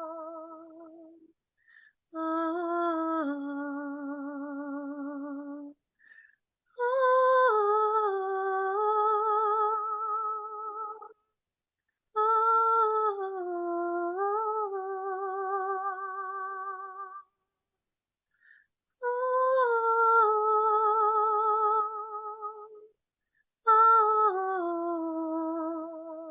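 A woman sings wordless, long-held notes with a wide vibrato, in six phrases of a few seconds each with short breaths between them.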